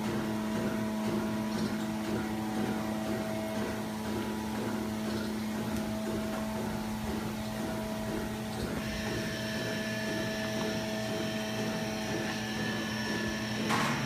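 Dairy barn's misting cooling system running: a steady mechanical hum holding several constant tones. A higher whine joins about two-thirds of the way through, and a single knock comes just before the end.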